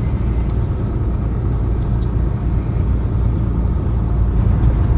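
Heavy truck's engine and road noise heard inside the cab while cruising on the highway, a steady low rumble.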